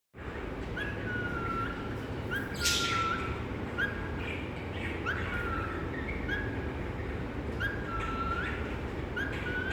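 A parrot whistles the same short call over and over, about every second and a half: a quick upward note leading into a longer, level whistle. A short harsh burst sounds about two and a half seconds in, over a steady low rumble.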